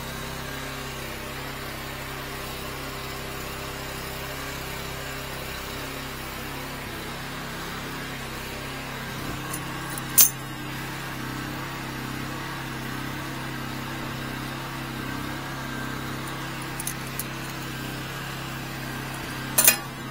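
Metal fittings of a high-pressure drain-jetting hose clinking as they are coupled and tightened with pliers: one sharp clink about halfway through and a couple more near the end, a few fainter ticks between them, over a steady low hum.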